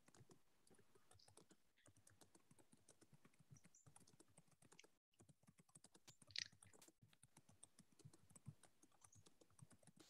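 Faint computer keyboard typing: irregular quiet key clicks, with one slightly louder click a little past halfway.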